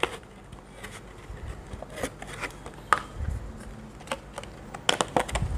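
Clear plastic blister packing of an M.2 NVMe SSD being pried open by hand: scattered crackles and clicks of stiff plastic, with a couple of dull thumps, until the drive pops out.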